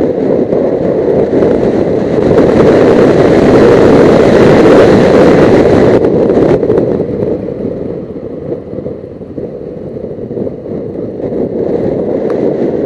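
Wind rushing over a motorcycle helmet while riding, picked up by a microphone inside the helmet, with the Suzuki GS500E's engine running beneath it. The rush swells about two seconds in and eases off after about six seconds.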